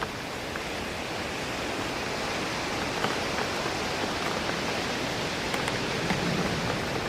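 Steady rain hitting a window, with small scattered drop taps over a continuous hiss of rain and wind in trees.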